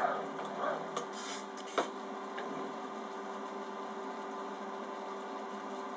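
The fishing-leader twisting machine's motor, its whine falling away at the start, followed by a short second whine and two clicks, the second the loudest, about two seconds in. After that only a steady low hum with hiss remains.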